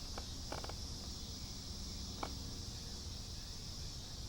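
Quiet steady high hiss with a faint low hum, broken by a couple of faint short clicks, about half a second and two seconds in.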